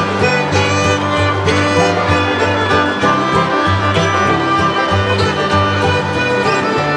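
Background music from a stock audio library: a tune of sustained melodic notes over a moving bass line.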